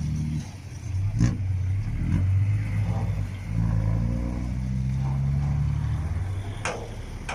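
Heavy diesel engines of a farm tractor and a six-wheel dump truck running close by, the engine note rising and falling as they manoeuvre. Two sharp knocks, one about a second in and one near the end.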